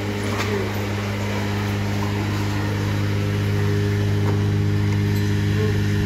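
A stainless steel bulk milk cooling tank's machinery running with a steady electric hum.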